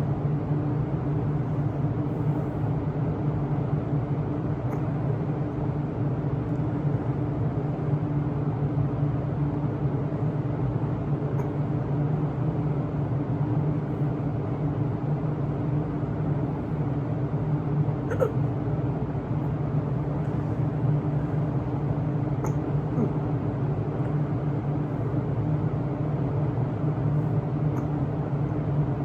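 Steady hum of an electric fan, with a person hiccuping over it every few seconds at irregular intervals; the clearest hiccup comes about two-thirds of the way through.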